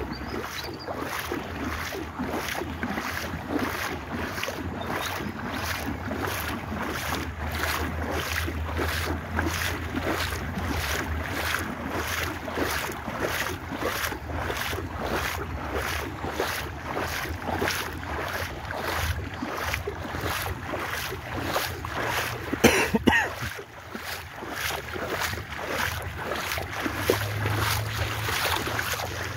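A small craft moving over floodwater: a steady low motor hum under rushing water noise and wind on the microphone, pulsing evenly about twice a second. A brief louder clatter comes about three-quarters of the way through.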